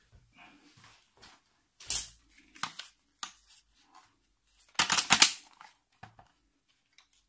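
Plastic handling noises as a laptop and its battery pack are picked up and the battery is fitted into the laptop: scattered clicks and rustles, with a sharp knock about two seconds in and a loud cluster of clicks about five seconds in.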